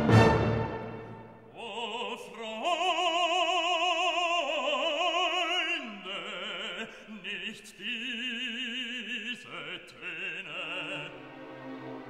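Background music in operatic style: a voice holds long notes with wide vibrato, stepping between a few pitches, after a loud orchestral chord dies away at the start.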